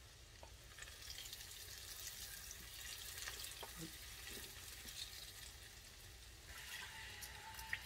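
Hot chili oil, fresh from frying the chilies, sizzling and crackling faintly as it bubbles in a glass measuring cup, with a wooden spoon stirring it.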